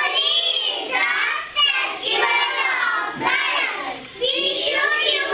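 A group of young children singing together in short phrases with brief breaks between them.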